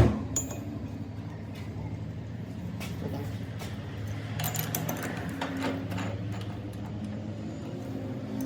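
A motor running with a steady low hum, with scattered light clicks and knocks.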